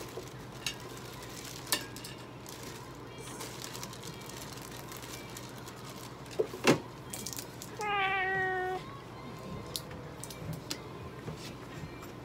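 A 12-year-old mixed-breed cat, held on the exam table, gives one drawn-out meow, slightly falling in pitch, about eight seconds in. A pair of sharp clicks, the loudest sounds here, comes shortly before it, with a few fainter clicks of handling scattered around.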